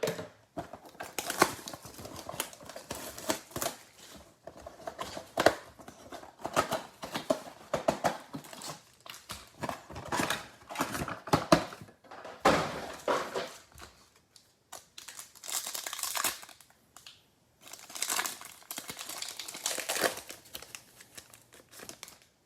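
Plastic wrapping of a football trading-card mega box and its packs being torn open and crinkled, a long run of irregular crackling and rustling that dies away near the end.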